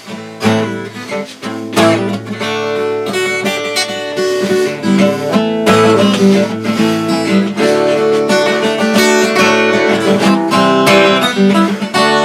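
Acoustic guitar strumming chords as the instrumental intro to a song.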